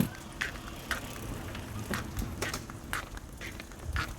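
Footsteps walking on a path, about two steps a second, with a low rumble underneath.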